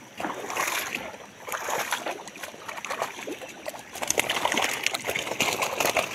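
A netful of common carp flapping and slapping against each other, with wet splashing and water sloshing; a dense patter of small slaps that gets busier and louder about four seconds in.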